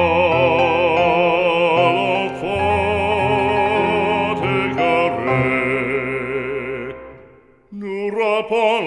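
Background music from a slow French devotional song: a melody with wide vibrato over held accompaniment. It fades away about seven seconds in, and a new phrase starts near the end.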